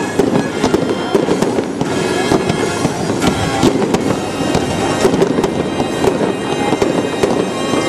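Aerial fireworks launching and bursting in quick succession, a dense run of sharp bangs and crackles, with music playing underneath.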